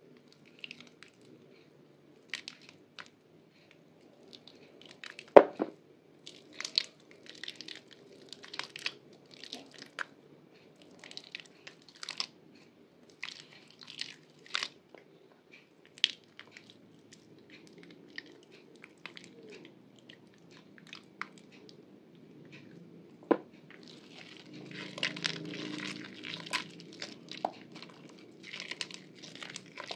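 Soaked Purbasari white bar soap crumbling as hands crush and squeeze it: irregular soft crunches and crackles. A sharp crack comes about five seconds in and another late on, followed by a few seconds of denser crunching.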